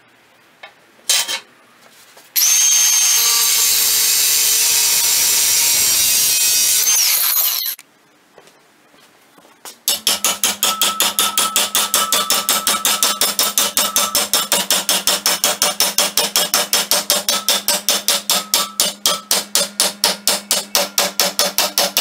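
A Milwaukee M12 Fuel cordless power tool blips briefly, then runs for about five seconds at a steady high whine that drops as it winds down. After a short pause come fast, even hammer blows on a steel strip clamped in a bench vise, several a second, bending the strip over the vise jaws.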